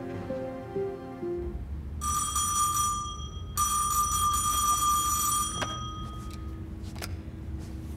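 Soft background music ends about a second and a half in. An electric bell then rings twice, a short ring and then a longer one, followed by a couple of sharp clicks.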